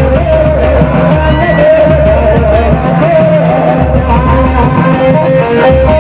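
Loud band music: a lead melody with sliding, bending notes over a heavy, steady bass beat, with a new run of higher notes about four seconds in.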